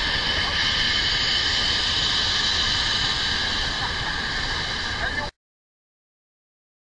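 A 1999 Ford F-250 Super Duty pulling at full throttle in a tug-of-war, its rear tyre spinning and squealing on the pavement, which makes a steady, loud noisy roar. The truck has open differentials front and rear, so the wheel losing traction spins. The sound cuts off abruptly about five seconds in.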